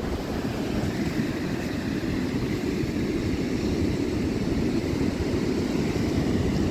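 Steady low rumble of wind buffeting a phone microphone on a beach, mixed with the wash of shallow surf.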